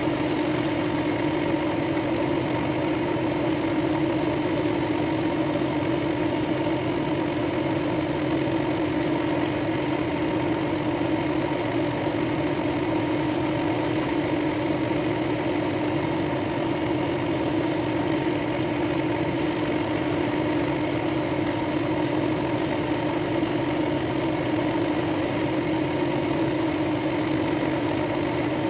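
Drill press motor running at a steady speed with an even hum, spinning a wood and brass ring on a mandrel while it is hand-sanded with sandpaper.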